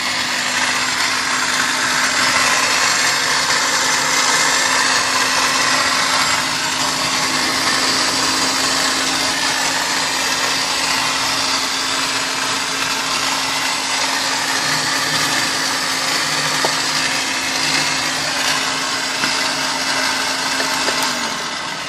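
An electric motor in a 1999 Kia Sportage whirring steadily with a high whine over a low hum. It runs on its own with the battery connected and no key in the ignition, then winds down at the very end. The owner thinks it is the starter motor running on.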